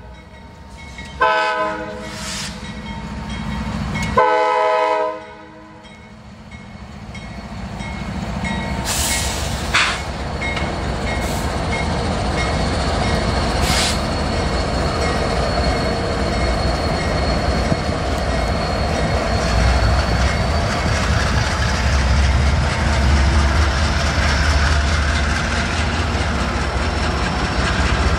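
Norfolk Southern diesel locomotives, a light engine consist of SD70ACe and AC44C6M units, sounding the horn chord twice in the first five seconds for a grade crossing. The engines and wheels then rumble past, louder from about six seconds in, with a few sharp wheel clicks over the rail joints.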